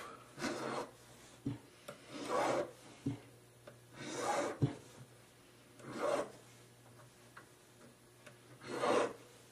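Fine-cut (no. 4) barrette file rasping across the outside of a ring shank, five slow strokes about two seconds apart with a few light ticks between them. The file is taking down the excess solder left at the sizing joint.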